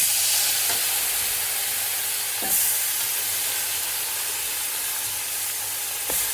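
Pieces of stock-boiled lamb going into hot oil and spices in a cooking pot, sizzling; the sizzle starts suddenly, with a louder flare about two and a half seconds in.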